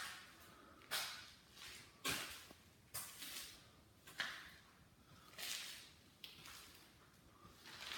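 Soft swishing noises, roughly one a second, each starting suddenly and fading within about half a second, made by the person filming as he moves around with the phone.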